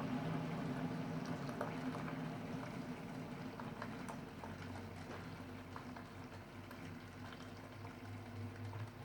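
Keurig coffee brewer bubbling and gurgling over a low steady hum, with scattered small ticks, slowly growing quieter: the weird noise the machine is making.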